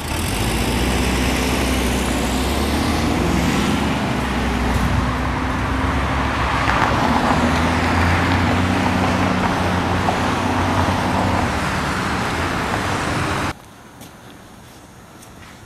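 Street traffic with a nearby motor vehicle's engine running, a steady low drone under a wide hiss of road noise. Near the end it cuts off abruptly, leaving a much quieter background with a few faint ticks.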